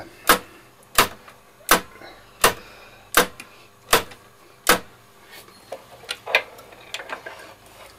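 Ferrograph Series 4 tape recorder's equalizer switch being clicked back and forth to work in freshly applied switch cleaner: seven sharp, evenly spaced clicks, then a few fainter, uneven clicks near the end.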